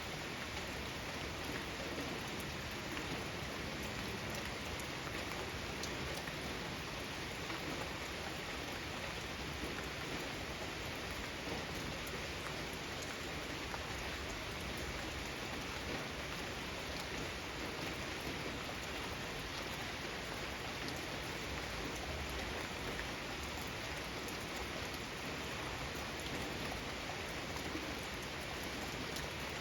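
Steady rain falling: an even hiss with small scattered drop ticks.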